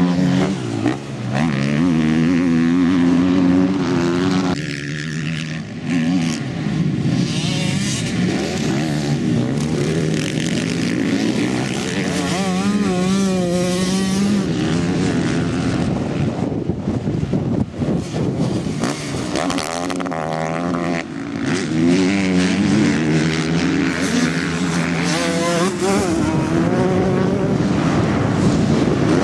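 Motocross bikes' engines revving hard and dropping back, over and over, their pitch rising and falling with the throttle and gear changes as they ride round a dirt track.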